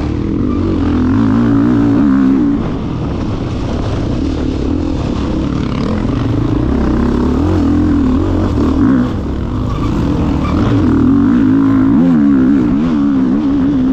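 Enduro motorcycle engine revving up and down over and over, its pitch rising and falling in quick waves, loudest about two seconds in and again near the end.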